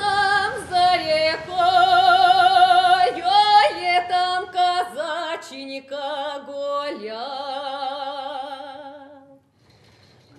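Russian folk choir singing without accompaniment, high women's voices most prominent, with a wide vibrato and slides up into long held notes. The singing stops about nine seconds in.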